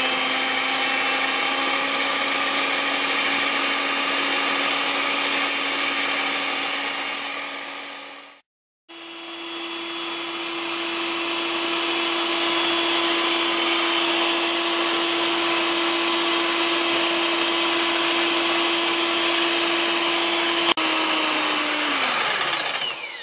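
Electric hand mixer with a whisk attachment running steadily, beating egg whites until they are frothy for meringue. Its motor whine drops out briefly about eight seconds in, comes back at a higher pitch, then slows and stops near the end.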